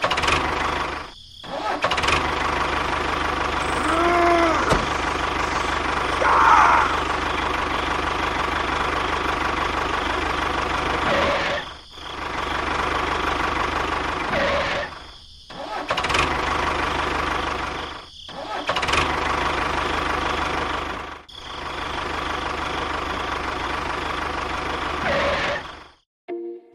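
Small motor of a DIY miniature tractor running steadily, cutting out briefly about five times.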